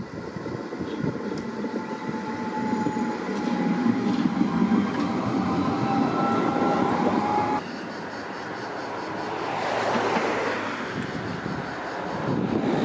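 Tram passing close on curved track: a rolling rumble that grows louder, with a thin steady whine over it, cutting off suddenly about two-thirds through. Then a fainter tram approaches from further off, its noise rising and falling.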